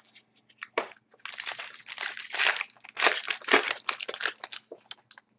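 A trading-card pack's foil wrapper being torn open and crinkled by hand, a dense crackling that comes in about a second in and thins out to a few crackles near the end.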